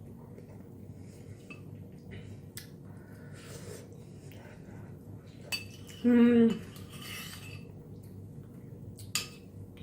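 Cutlery against a dish: scattered light clinks and scrapes of a spoon or fork on the pudding dish, with a brief hum from a person about six seconds in.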